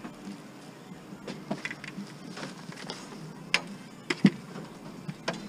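Scattered knocks and clicks of scrap items being handled and set into a van's cargo space, with two sharper knocks about three and a half and four seconds in.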